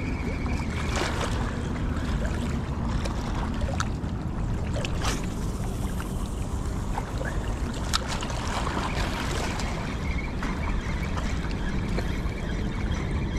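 Steady rushing noise of wind and water at the shoreline, with a few faint clicks.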